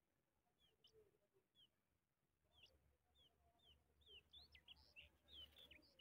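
Skylark nestlings begging: faint, short, high chirps that fall in pitch, coming faster and louder in the second half.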